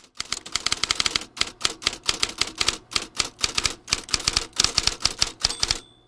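Typewriter keys being typed rapidly, sharp clacking strikes several a second in runs broken by brief pauses.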